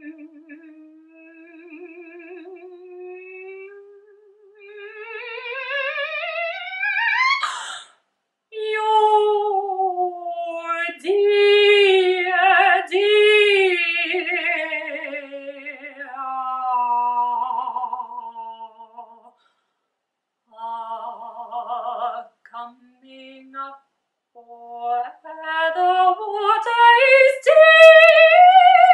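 Unaccompanied mezzo-soprano voice singing with vibrato: a held low note slides slowly upward over several seconds, then phrases broken by short pauses, climbing to a high held note near the end.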